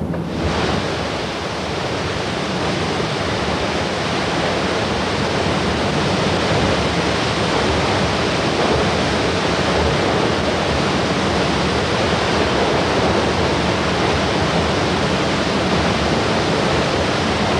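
The Reichenbach Falls, a mountain waterfall dropping about 100 metres, rushing steadily: a dense, even wash of falling water that cuts in abruptly at the very start.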